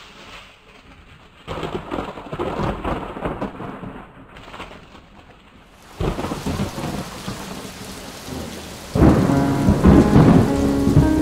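Rain falling and splashing on surfaces, with rolls of thunder. The sound swells suddenly three times and is loudest near the end.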